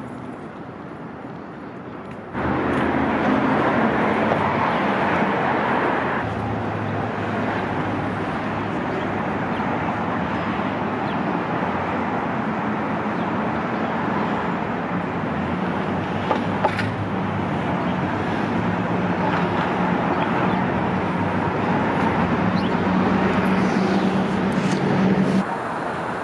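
Motor vehicle running with steady engine hum and road noise. It starts abruptly about two seconds in and drops away near the end.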